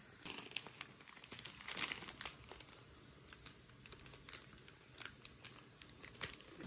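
Clear plastic wrapping and an inflatable vinyl float crinkling as they are handled, in short irregular crackles.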